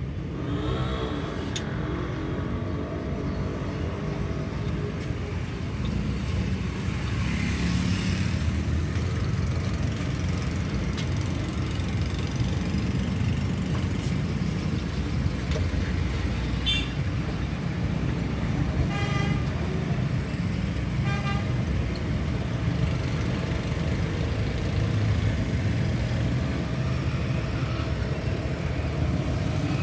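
Heavy truck engine running with a steady low rumble that grows a little louder about six seconds in. Short horn toots sound around the middle.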